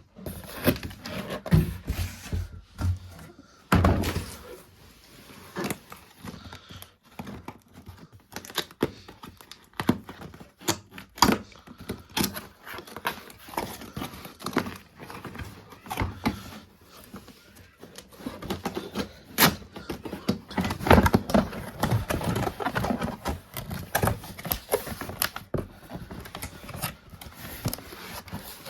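A series of irregular knocks, clunks and clicks, thickest from about twenty to twenty-five seconds in, with no steady motor sound.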